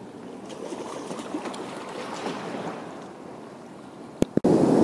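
Small sea waves washing against rocks, with light scattered clicks. About four seconds in come two sharp clicks, then a sudden, much louder steady rush of surf and wind.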